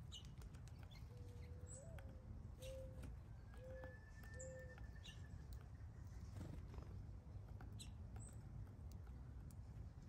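Faint, scattered taps of a downy woodpecker pecking at a suet cake in a wire cage feeder. A bird coos in the background: one longer low note, then three short ones.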